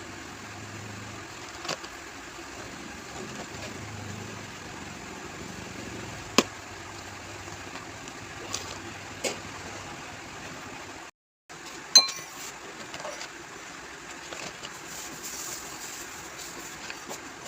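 Steady background hiss with a few isolated sharp clicks and taps, the loudest a brief ringing clink about twelve seconds in.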